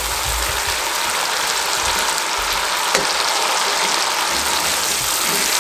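Masala gravy and chicken pieces sizzling steadily in oil in a wok on a high gas flame. The water has cooked off and the oil has separated, so the spices are now frying. There is a single light tap about three seconds in.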